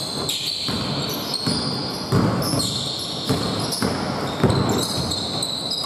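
Basketball bouncing on a hardwood gym floor during play, with sharp thuds, along with short high squeaks of sneakers on the court that start and stop several times.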